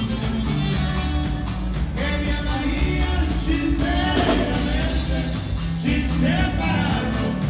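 Dance music with a singing voice over a steady beat, played loud.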